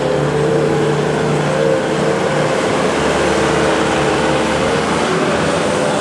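New Holland skid steer loader's diesel engine running steadily under load while the machine is driven, its pitch wavering a little.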